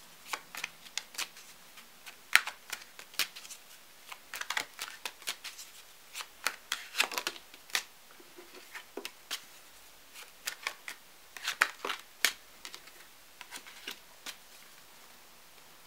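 A tarot deck being shuffled in the hand, with cards drawn off and laid onto a cloth-covered table. It is a run of irregular quick snaps and soft taps, some in quick clusters, that stops a little before the end.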